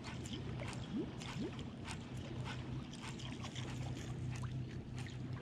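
A boat's electric trolling motor gives a steady low hum, with scattered light clicks and ticks over it.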